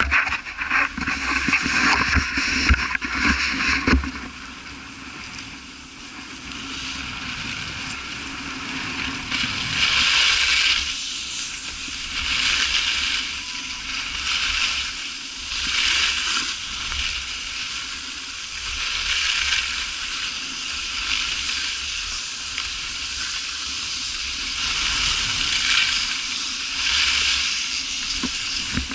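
A rider's edges scraping and hissing across packed, groomed snow during a descent, swelling with each turn about every three seconds. Wind buffets the microphone with low thumps in the first few seconds.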